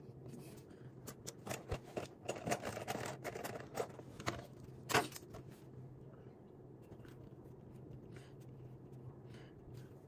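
Pen and paper handling at a desk: a run of small clicks, taps and scratches over the first half, the sharpest click about five seconds in, over a steady low room hum.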